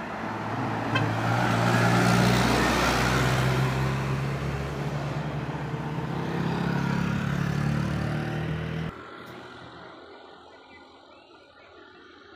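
Cargo truck engine running as the truck comes through the bend close by, with road noise, loudest about two seconds in. The sound cuts off abruptly about nine seconds in, leaving faint traffic ambience.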